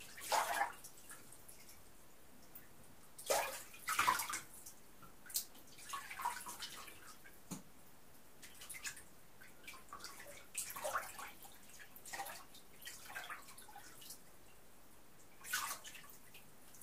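A person moving about in a filled bathtub, water splashing and sloshing in short irregular bursts a second or a few seconds apart, the loudest just after the start and around three to four seconds in.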